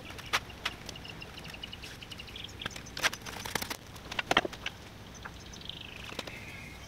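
Scattered clicks and knocks of small objects being handled and set down, with a cluster of sharper knocks in the middle, while birds chirp faintly in short high notes.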